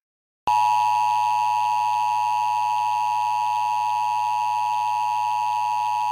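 Emergency Alert System attention signal: the steady two-tone alarm (853 and 960 Hz together) starts sharply about half a second in and holds unbroken. It heralds a broadcast emergency alert, here a flash flood warning.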